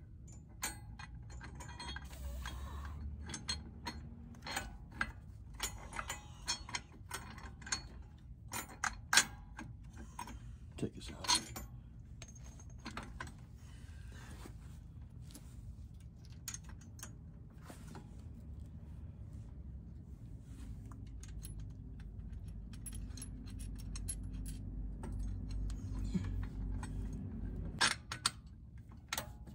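Steel brackets, U-bolts and nuts of a truck steering stabilizer kit clinking and tapping as they are fitted by hand to the tie rod, with irregular metal clicks that are densest in the first half. A low steady rumble runs underneath for much of the second half and stops suddenly near the end.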